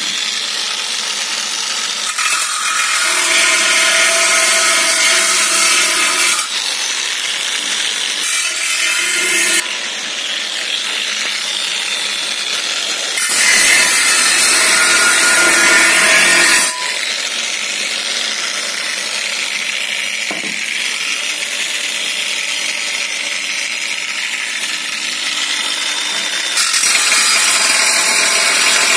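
Angle grinder with a thin cut-off disc cutting a slot along a crack in a cast aluminium alloy wheel rim, the crack being opened up for TIG welding. The cutting noise runs without a break and swells louder for a few seconds several times as the disc bites deeper, loudest a little past the middle and again near the end.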